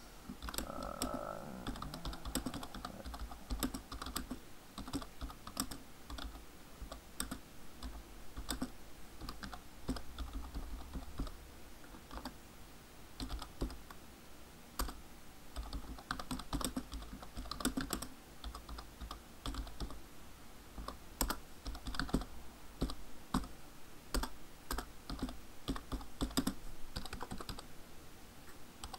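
Typing on a computer keyboard: irregular runs of key clicks with brief pauses between them.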